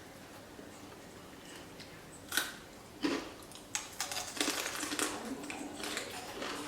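Crunching of Takis rolled tortilla chips being bitten and chewed: a single sharp crunch a little over two seconds in, then a dense run of crackly crunches.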